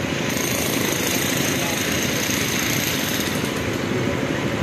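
Approaching train's locomotive running with a steady, rattling rumble.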